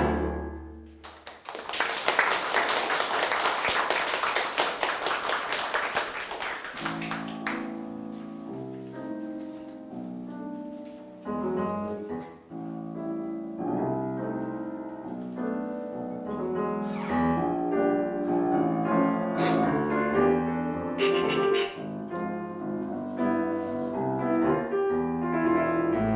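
Chamber music for piano and strings. Bowed-string music dies away at the start, and a dense noisy rush like clapping or scratching follows for about six seconds. Then the piano enters with chords and the strings join it.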